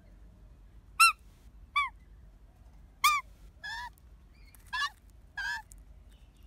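Young Australian magpie calling close by: six short squawks in three pairs, each arching briefly up and then falling in pitch.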